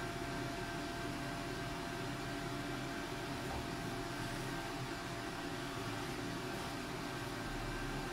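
A small motor running with a steady hum and a faint high whine.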